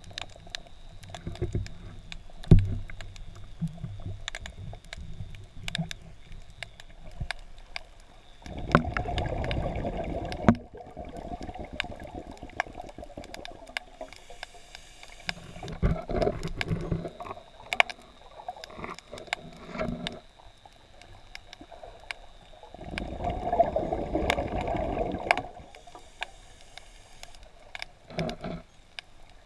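Underwater sound on a scuba dive: a diver's exhaled regulator bubbles rumbling in two loud bursts of about two seconds, some fourteen seconds apart, with smaller gurgles between, over a steady scatter of sharp clicks.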